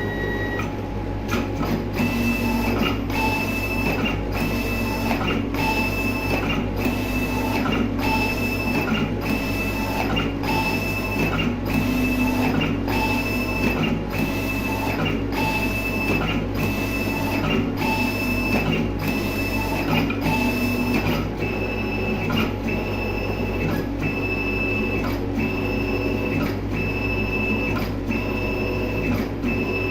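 Label die-cutting machine running through repeated cutting cycles, about one a second: each begins with a click and is followed by a high motor whine, over a steady low hum.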